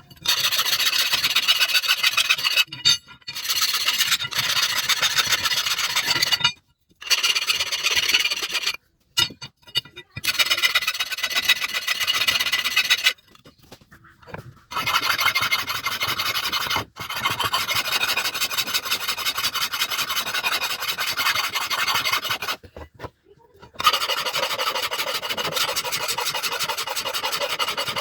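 Rasping of a steel cleaver blade being worked by hand against an abrasive, as when filing or sharpening the edge, in long runs of a few seconds each with short breaks between them.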